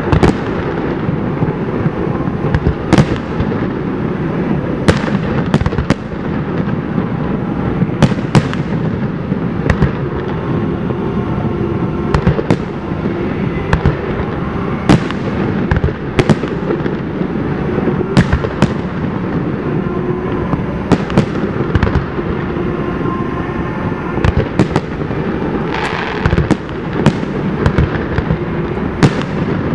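Aerial fireworks display: shells bursting in sharp bangs every second or two, several trailing off in echo, over a continuous low rumble.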